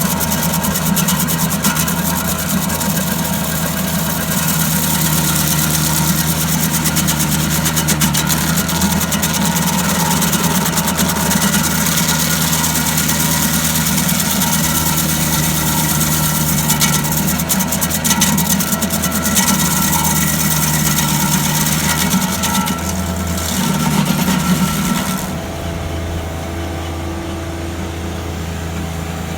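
Tractor engine running steadily with a dense, high crackling noise over it. About 25 seconds in the crackling stops and the engine runs on, a little quieter.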